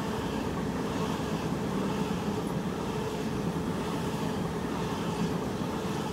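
Sydney Trains Waratah double-deck electric train passing through the station without stopping: a steady rumble of wheels on rails, with a faint hum underneath.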